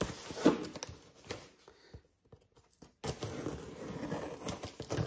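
Cardboard shipping box being torn open by hand: short scrapes, tearing and crackles of tape and cardboard, broken by about a second of near silence in the middle.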